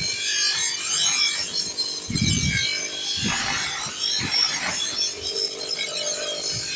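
Rasping scrape of steel being filed or sharpened, in irregular strokes, with a dull thud about two seconds in.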